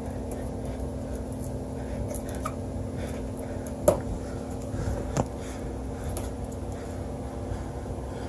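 Steady machinery hum with two sharp clicks, about four and five seconds in, from parts being handled.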